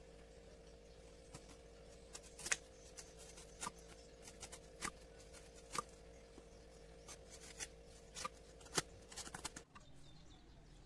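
Faint, irregular sharp clicks and light taps over a steady low hum; the hum cuts off near the end, followed by a couple more clicks.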